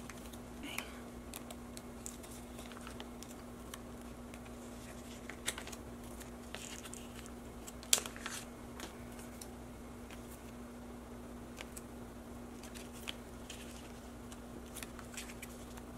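Photocards being handled in a ring binder's plastic pocket pages: soft rustling and sliding of cards in and out of the sleeves, with scattered small clicks and taps, the sharpest about eight seconds in. A steady low hum lies underneath.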